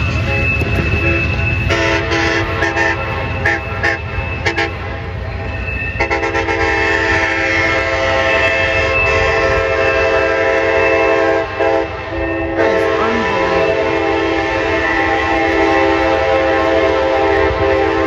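Diesel locomotive's multi-chime air horn sounding a chord, first in short blasts about two seconds in, then long held blasts from about six seconds in with a brief break near the middle. Under it runs the train's low rumble.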